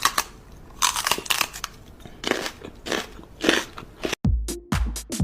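Irregular crunching and crackling noises in short clusters. About four seconds in it cuts to dance music with a heavy, steady bass beat.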